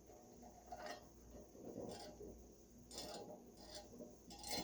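Faint, irregular metal clinks and taps, about five in all, as the parts of a three-chime steam whistle are handled and fitted back together; the loudest comes near the end.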